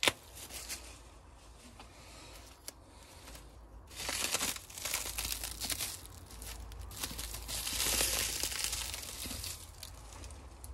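Clear plastic wrapping crinkling and tearing as it is pulled off a potted cactus by hand. There is a sharp crackle right at the start, then louder, steady crinkling from about four seconds in, easing off near the end.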